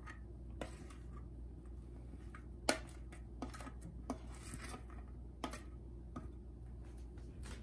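Kitchen tongs clicking and scraping against a paper plate as chopped cooked chicken is pushed off into a pan of pasta: a handful of scattered sharp clicks, the loudest a little under three seconds in, over a steady low hum.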